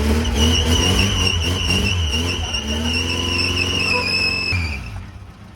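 A modified Maruti Suzuki Gypsy's engine running hard and revving, with a steady high-pitched squeal over it. Both stop abruptly about four and a half seconds in.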